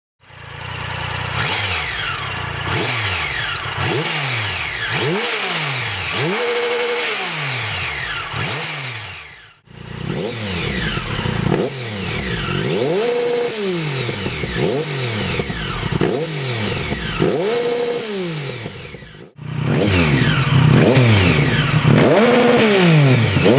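Triumph Tiger Sport 1050's inline three-cylinder engine, breathing through a Dominator aftermarket exhaust, being revved again and again, its pitch climbing and dropping with each blip of the throttle. The sound comes in three stretches split by two brief cuts, and the last stretch is louder.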